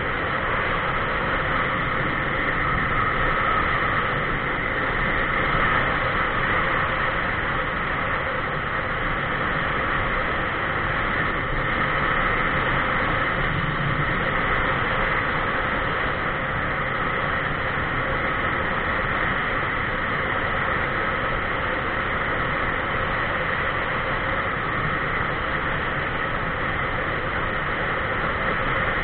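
Steady rushing noise of wind and road from a camera riding on a moving vehicle along a paved highway, unchanging throughout.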